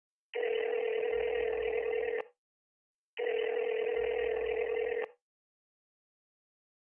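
Telephone ringback tone of an outgoing call, heard through a phone earpiece: two long steady tones, each about two seconds, about a second apart.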